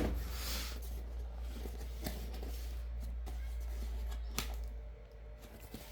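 Cardboard parcel being handled and pried at by hand: a sharp snap, a brief scraping rasp, then scattered light taps and rustles, over a steady low electrical hum.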